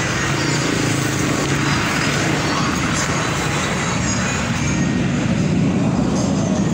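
Street traffic noise, a steady rumble of passing motor vehicles with motorbike engines going by.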